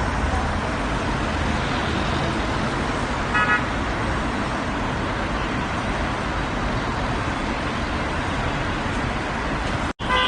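Road traffic noise: a steady rush of passing cars, with a short car-horn toot about three and a half seconds in and another right at the end. The sound drops out for a split second just before the end.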